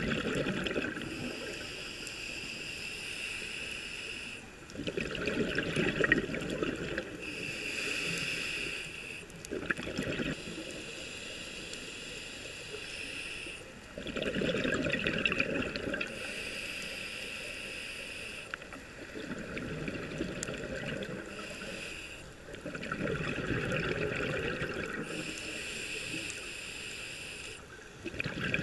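Scuba diver breathing underwater through a regulator, in a regular cycle of about one breath every five seconds. Each breath alternates between a steady hiss on the inhale and a rush of bubbling exhaust bubbles on the exhale.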